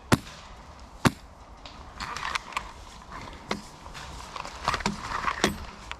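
Airsoft guns firing single shots: five sharp cracks at uneven intervals, the first two the loudest.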